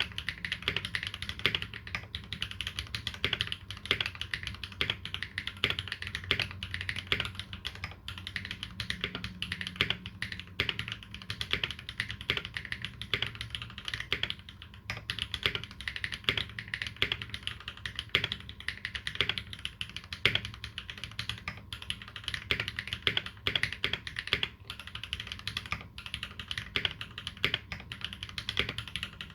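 Continuous fast typing on a custom mechanical keyboard with lubed Holy Panda tactile switches and GMK keycaps, a steady stream of keystrokes with a few louder strokes here and there.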